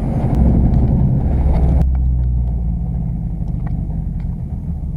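Car engine running at low speed, heard from inside the cabin as a steady low rumble. A hiss above it stops about two seconds in.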